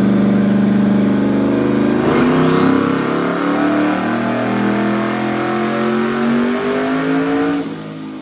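Turbocharged truck engine making a full-throttle pull on a chassis dyno: revs climb steadily from about two seconds in with a rising turbo whistle, then the throttle lifts near the end. The tuner reports a breakup issue at the top of the pull, with timing set very low for 12 pounds of boost.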